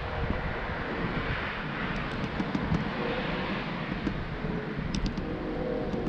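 Steady outdoor rumble and hiss on a small camera microphone, with a few faint high ticks about two and five seconds in.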